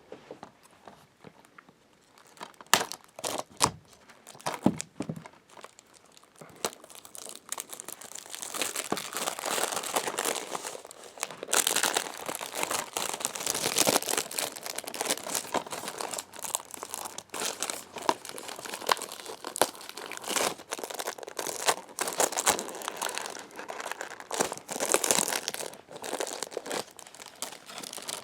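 Plastic shrink wrap being torn and peeled off a DVD case, crinkling and crackling. It starts as a few sharp ticks and snaps, and about eight seconds in becomes steady, dense crinkling as the wrap comes off.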